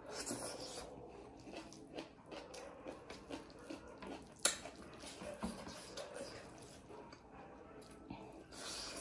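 Close-up eating sounds: chewing, with fingers mixing rice on a steel plate and many small wet clicks and smacks. There is one sharp click about four and a half seconds in.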